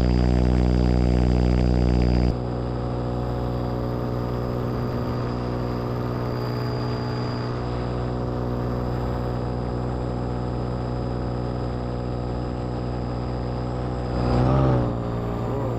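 Paramotor engine and propeller running steadily in flight, a drone of even tones with wind noise. About two seconds in it drops to a lower level, and near the end it swells briefly with a wavering pitch.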